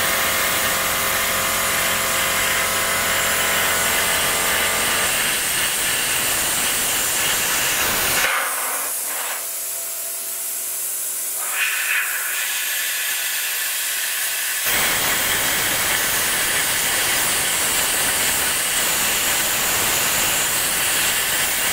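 Cut 50 ST plasma cutter cutting steel tube: a loud steady hiss of the arc and its compressed air, with a low humming tone in the first few seconds. About eight seconds in, the cut stops and only a softer hiss remains for about six seconds, then cutting starts again.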